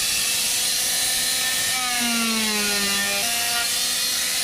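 Electric power saw running and cutting through wood. Its motor note drops under load about two seconds in and comes back up about a second later.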